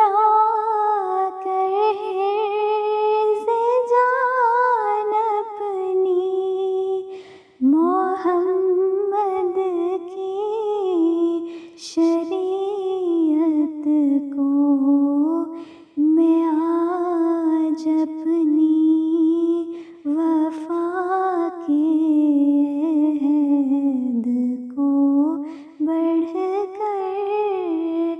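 A woman humming a naat melody without words and without instruments, in long gliding phrases broken by short breaths about every four seconds.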